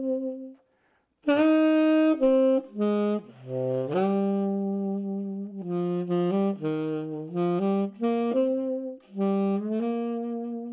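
Solo tenor saxophone. A held note dies away just after the start, and after about a second's pause the saxophone plays a melody of held notes, dipping low around four seconds in.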